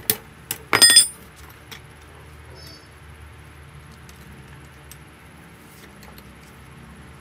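A hammer striking a scrap-iron rod being bent around a ring: a few light taps, then one loud ringing metal strike about a second in. After that only a few faint clinks as the rod is handled.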